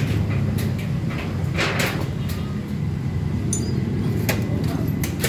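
Hyundai Starex engine running with a steady low rumble, with several sharp clicks and knocks over it.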